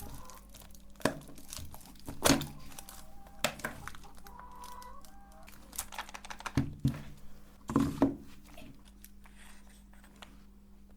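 Jumbo chalk sticks being crushed in a meat grinder: irregular sharp cracks and crunches, loudest about two seconds in and again around eight seconds, over a steady low hum.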